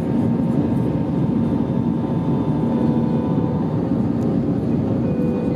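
Airbus A319 cabin noise in flight: a steady rush of airflow and engine drone, with a few faint steady hums above it.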